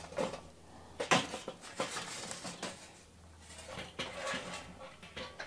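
Glowing coconut charcoal cubes being tipped out of a metal chimney starter into a kettle grill: a few sharp clattering knocks of coals against metal, with lighter rattling between.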